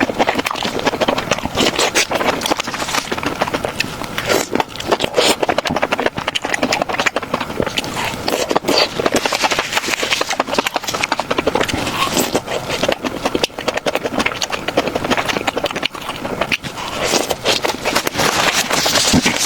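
Close-miked eating sounds: continuous chewing, with dense wet clicks and crunches.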